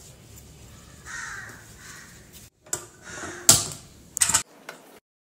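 A steel spoon scraping and rubbing as it spreads oil over an eggplant on a ceramic plate, followed by three sharp clicks in the second half.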